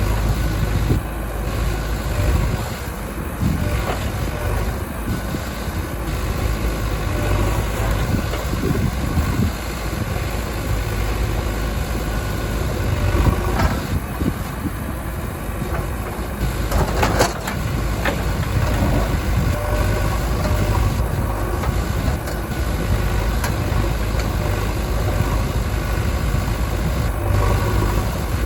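JCB 3DX backhoe loader's diesel engine running steadily while it works, with a sharp knock a little past halfway.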